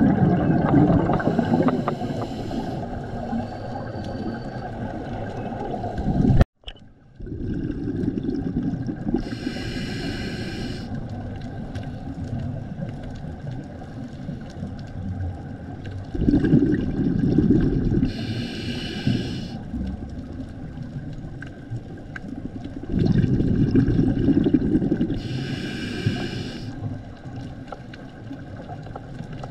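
Scuba regulator breathing heard underwater: a low rumble of exhaled bubbles alternating with the hiss of each inhale, repeating about every seven seconds. The sound cuts out briefly about six seconds in.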